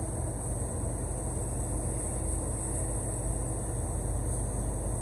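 Steady hiss of compressed air through a gravity-feed paint spray gun applying epoxy sealer, over a low steady rumble of air moving in a paint booth.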